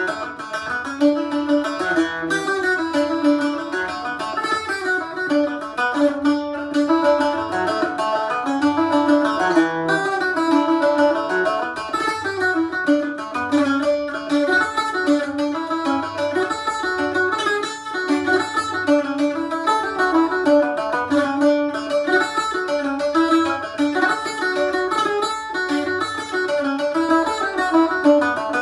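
Roosebeck Irish bouzouki, a maple-top instrument tuned G D A E, played solo: a lively Irish tune picked in quick notes on its doubled metal strings, with a lower note ringing repeatedly under the melody.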